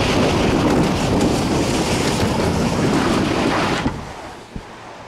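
Plastic ride tube sliding fast down a wet plastic-mat tube slide: a loud, even rushing noise mixed with wind buffeting the microphone. It drops away sharply about four seconds in as the tube slows on the flat runout.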